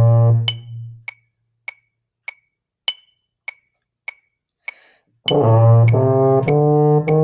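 Baritone horn (euphonium) holding a low note that ends about a second in, leaving a metronome ticking alone at 100 beats per minute, every fourth tick accented. A short breath-like hiss comes just before the baritone starts playing again a little after five seconds, over the continuing ticks.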